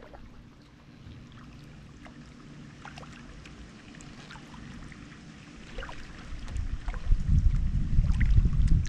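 Kayak paddling: water dripping and splashing lightly off the double-bladed paddle blades in small scattered ticks over a faint low hum. From about six and a half seconds in, a loud low rumble that swells and fades takes over.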